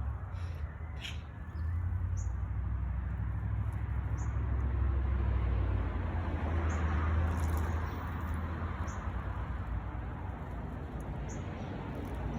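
Small birds giving short high chirps every second or two over a steady low rumble.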